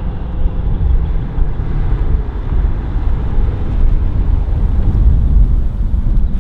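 Exhaust of a Shelby GT350's 5.2-litre flat-plane-crank V8, made louder by a Corsa Double Helix X-pipe resonator delete, running at a steady pitch with a heavy low rumble.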